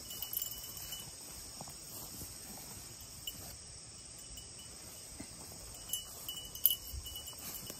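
Insects in a late-summer field, a steady high-pitched chorus of crickets and katydids, over faint rustling of feet and the dog moving through the weeds. One brief knock stands out a little after six seconds in.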